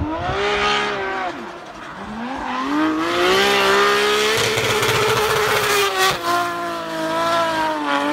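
Turbocharged BMW S54 straight-six in a BMW E30 drift car revving hard while drifting. The engine note drops and climbs again about a second and a half in, then holds high, with tyre squeal in the middle of the slide.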